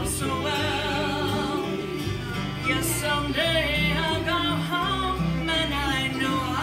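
Acoustic string band playing an instrumental break in a country/bluegrass waltz: a wavering harmonica lead over strummed acoustic guitars, with mandolin and fiddle, and steady low bass notes underneath.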